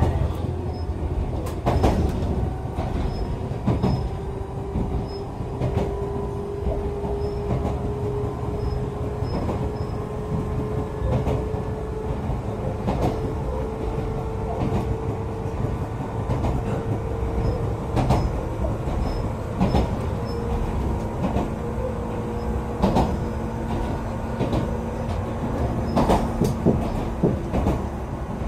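Echizen Railway electric railcar running, heard from inside the car: a steady rumble with frequent knocks as the wheels cross rail joints, and a motor whine that rises slowly in pitch as the train picks up speed, then levels off.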